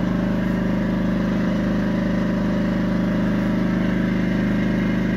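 Yamaha EF1000 portable generator's engine running steadily at an even speed.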